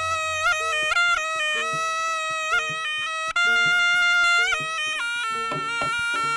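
Jaranan music: a slompret, the Javanese shawm, plays a nasal stepping melody with ornamented turns over drum and percussion strokes.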